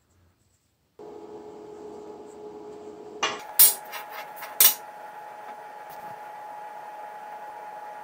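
Small steel pieces clanking on a steel welding table: three sharp metallic knocks in quick succession a few seconds in, over a steady humming tone from the shop.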